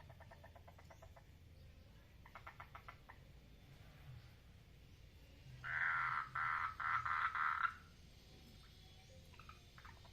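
Frogs calling in a pond: quiet trills of rapid clicking pulses, and about halfway through a much louder pulsed call from a nearer frog lasting about two seconds.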